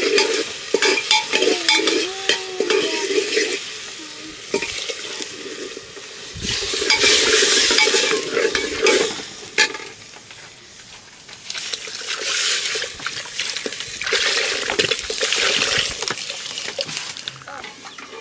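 Food sizzling as it fries in a pan while it is stirred and scraped with a spoon, the scraping and sizzling coming in two long louder spells.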